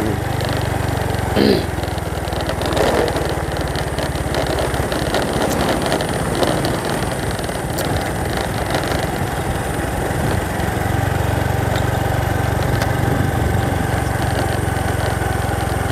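A vehicle engine running steadily on the move, with road and wind noise over it; the engine sound grows a little stronger about eleven seconds in.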